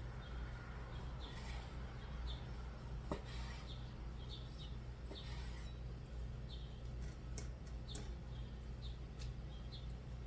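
Knife cutting raw chicken breast into nugget pieces, with a few faint knocks of the blade against the board. Under it runs a steady low hum, and short high chirps repeat every half second or so.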